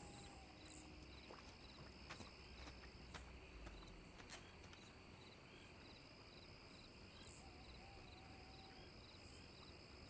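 Faint night ambience of crickets chirping, a short chirp repeated about three times a second over a steady high hiss, with a few faint clicks.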